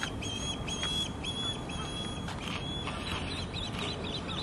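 Osprey calling: a run of short, level, high whistled notes, about three a second, turning near the end into quicker, sharper up-and-down chirps, over a steady low background rumble.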